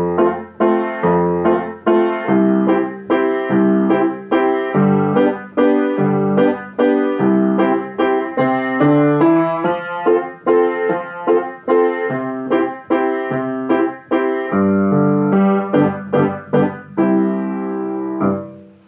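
Piano playing an accompaniment in a steady, moderate rhythm of chords and bass notes, ending on a held chord that dies away near the end.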